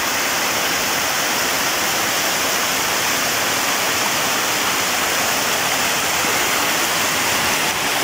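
Small waterfall pouring over a rock face into a pool: a steady rush of falling water.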